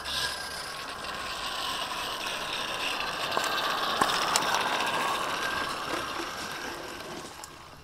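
Model train on a 16mm-scale garden railway running past, its mechanical clatter swelling to a peak about halfway through and fading away near the end. A few sharp clicks come near the middle.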